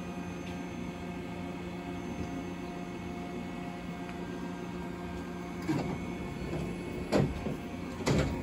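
Steady electric hum, with several level tones, from a JR West 125 series electric train standing at the platform. About six, seven and eight seconds in come three louder, sudden clatters.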